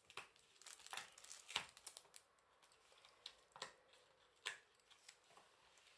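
Faint rustling and crinkling of paper and card being handled, with a handful of sharp ticks and taps scattered through, the strongest a little over a second in.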